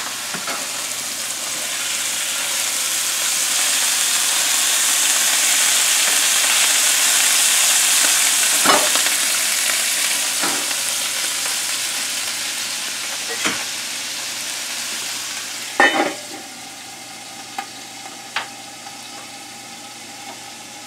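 Ground beef sizzling as it browns in a stainless skillet over a gas burner, with a spatula clicking and scraping against the pan a few times. The sizzle swells over the first few seconds, eases off, and falls to a much quieter level after two sharp knocks about sixteen seconds in.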